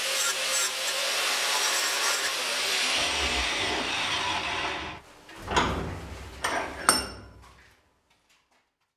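Angle grinder with a flap disc sanding the edge of a steel strip clamped in a vise, then switched off and winding down with a falling whine, stopping about five seconds in. A few sharp metal clanks follow as the vise is opened and the strip is taken out.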